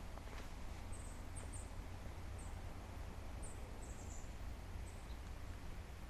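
A small bird's very high, thin call notes, about a dozen short chirps scattered through the first five seconds, over a steady low rumble and faint hiss of forest ambience.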